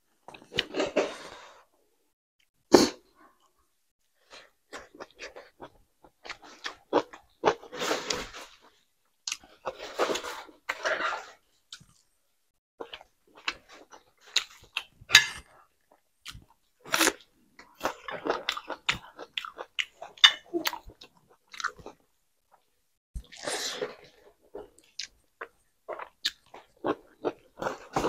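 Close-miked eating sounds of a person chewing a mouthful of rice and vegetable curry eaten by hand: many short mouth clicks and smacks, with a few longer noisy stretches about 1, 8, 10 and 23 seconds in.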